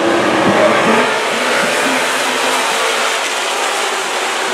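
A field of hobby-class dirt-track race cars running hard under green, heard as a loud, steady din of many engines.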